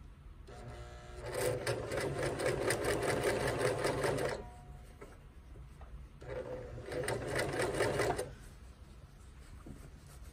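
Domestic electric sewing machine stitching a seam in two runs: one of about four seconds that builds up to speed in its first second, then a short pause and a second run of about two seconds. The stop-and-start sewing comes from the fabric being turned by hand around a curved seam.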